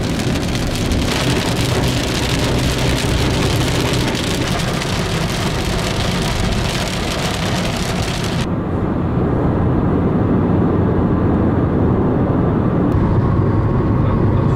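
A car driving, heard from inside: a loud, steady hiss of rain and tyres on a wet road. About eight seconds in it cuts abruptly to a duller, lower rumble of the car running on a dry road.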